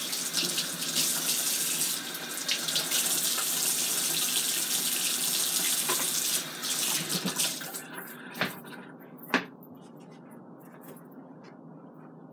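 Kitchen faucet running into the sink as a raw salmon fillet is rinsed under it. The water shuts off about seven and a half seconds in, followed by two sharp knocks a second apart.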